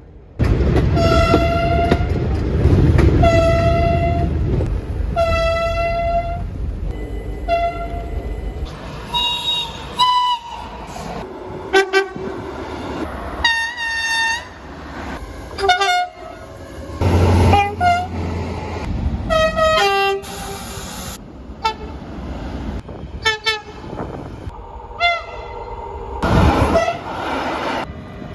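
A run of train horn blasts from several trains, edited one after another. First come three short blasts over the heavy rumble of a passing train. Then follow many short toots at different pitches, some sliding between two notes, broken by abrupt cuts.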